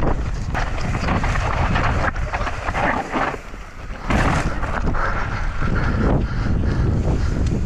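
Wind buffeting a helmet-mounted camera's microphone at speed as a mountain bike descends a dry, rocky dirt trail, with tyres crunching over loose stones and the bike clattering. The rush eases for about a second in the middle, then picks up again.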